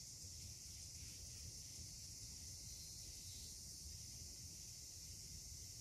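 Quiet garden ambience: a faint, steady high-pitched insect drone that does not change, over a low rumble of outdoor air.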